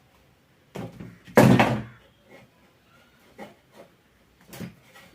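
Knocks and clunks of an opened mixer grinder and its parts being handled on a workbench: a soft knock just under a second in, a loud clatter about a second and a half in, then several lighter knocks.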